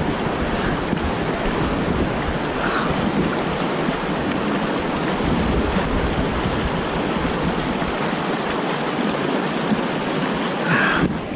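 Steady rush of water pouring over a concrete lake spillway and running off through a shallow stream.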